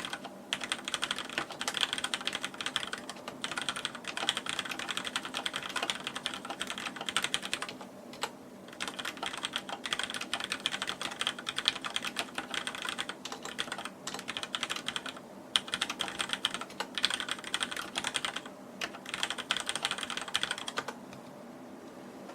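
Deck Francium mechanical keyboard with Cherry MX Black switches being typed on quickly: a dense run of key clacks broken by a few brief pauses, stopping shortly before the end.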